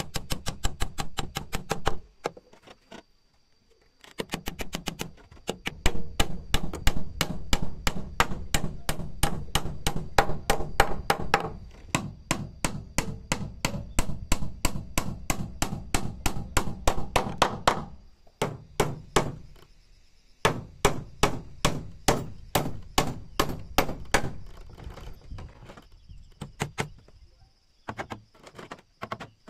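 Hammer driving nails through metal angle brackets into a wooden railing and posts: runs of quick sharp blows, about three or four a second, broken by a few short pauses.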